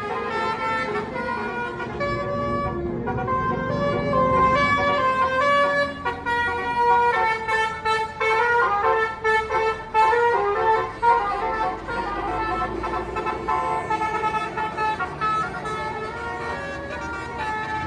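Tour bus's Basuri "telolet" musical air horn playing a tune in stepped notes, with the bus's engine rumbling underneath.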